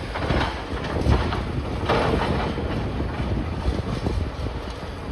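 Wind buffeting the microphone in irregular gusts over a low outdoor rumble.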